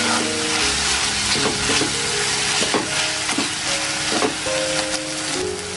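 Chopped tomatoes and onions sizzling in hot oil in an aluminium kadhai, stirred with a steel spoon that scrapes and knocks against the pan. The tomatoes are being fried down until soft.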